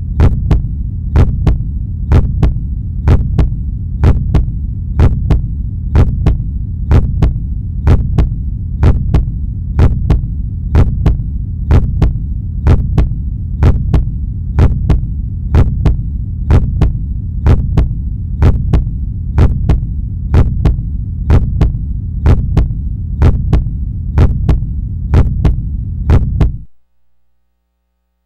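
Loud electrical hum in the audio track, with a sharp click repeating about twice a second. It cuts off suddenly near the end.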